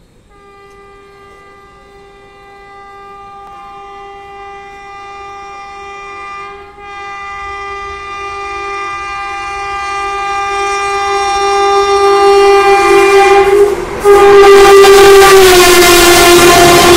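WAG-7 electric locomotive's horn sounding one long, steady blast that grows louder as the train approaches. It breaks off briefly about fourteen seconds in, then sounds again and drops in pitch as the locomotive passes. The wheel noise of the passing coaches comes in at the same time.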